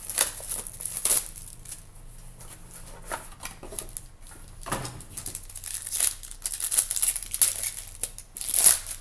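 Foil trading-card pack wrapper being torn open and crumpled by hand, an irregular run of crinkling and tearing, with a single thump about five seconds in.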